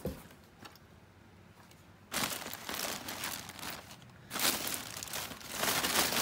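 Packing material in a freshly opened shipping box being rummaged through and pulled out: two spells of rustling and crumpling, the first starting about two seconds in.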